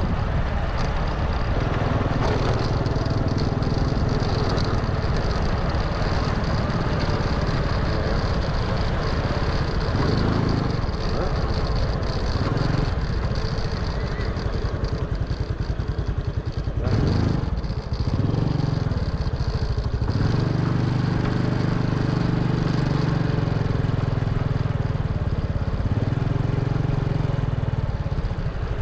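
A small vehicle engine running as the vehicle moves along a road, its low note rising and falling a few times, with wind rumbling on the microphone.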